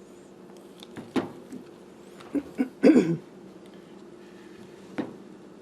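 Handling noises of epoxy gluing: a few short clicks and knocks from a glue tube and tools being handled, the loudest around the middle, over a steady low hum.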